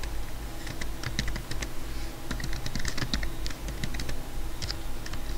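Typing on a computer keyboard: quick, uneven runs of keystrokes with short pauses.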